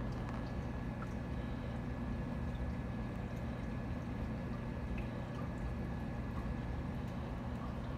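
Biocube 29 nano reef aquarium running: a steady low pump hum with water trickling through the tank.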